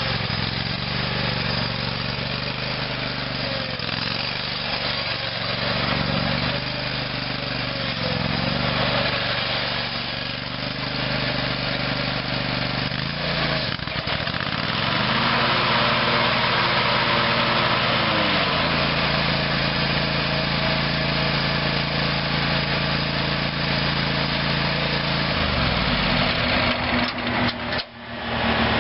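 Kohler 25 HP gas engine of a 2015 Hustler Raptor zero-turn mower running, its speed shifting several times. About halfway the sound grows harsher and brighter, and near the end the pitch rises, then dips briefly.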